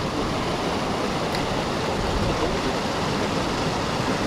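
Small creek waterfall pouring into a rock pool: steady rushing, splashing water.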